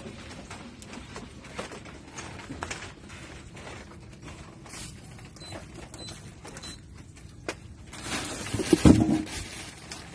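Plastic bags crinkling and rustling as bagged milkfish are handled in a plastic tub. Near the end comes a louder thump and rustle as a bag of fish is set down on a weighing scale.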